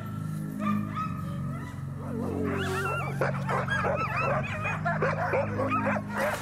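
Many sled dogs yelping at once, starting about two seconds in as a dense chorus of short rising and falling cries, over background music.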